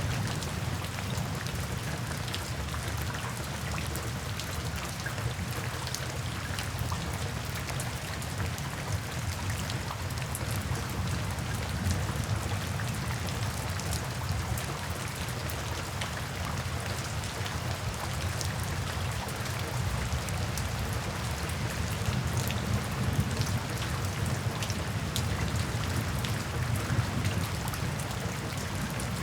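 Steady heavy rain falling and spattering on surfaces, with dense patter of individual drops over a low rumbling wash.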